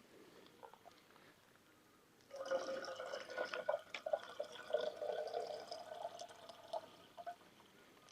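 Liquid poured into a cup or glass for about five seconds, starting a couple of seconds in, its ringing tone edging slightly higher as the vessel fills, with small splashes and clicks.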